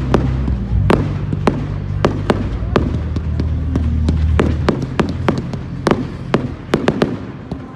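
Display fireworks bursting: a rapid series of sharp bangs and cracks, a few a second, over music with a deep bass line that fades out about two-thirds of the way through.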